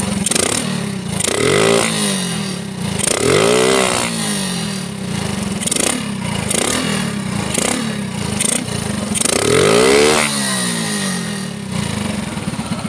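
Small single-cylinder motorcycle engine with a CPO PE24 racing carburettor, idling and revved with quick throttle blips. It makes three big revs, about one and a half, three and a half and ten seconds in, with smaller blips between, dropping back to idle after each.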